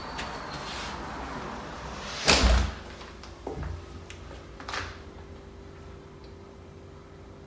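A door swung shut with one loud thud about two seconds in, followed by two lighter clicks.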